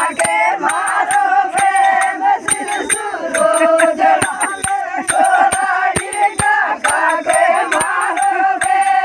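Women's voices singing a Meenawati folk song (lamba geet) in chorus, with sharp percussive beats, likely hand claps, keeping time throughout.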